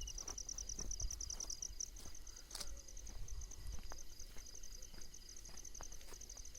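Night insects chirping in a steady, fast, high-pitched pulsing trill, with scattered faint clicks.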